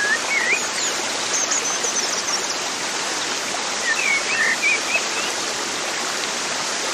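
Steady rush of running water with short bird chirps near the start and again about four seconds in, and faint high twitters between them.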